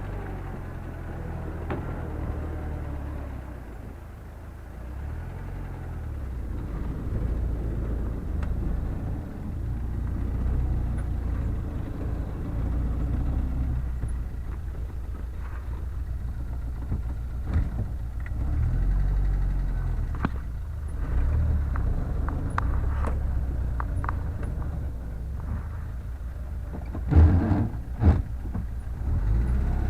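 Motor vehicle engine running while driving, its pitch rising and falling with speed, with scattered rattles and a few sharp knocks near the end.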